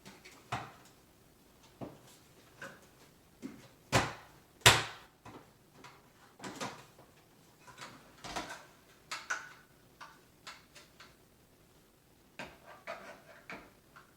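Scattered plastic clicks and knocks as the bag door and housing of a Hoover HushTone upright vacuum are handled and pressed into place, with two sharper snaps about four and five seconds in.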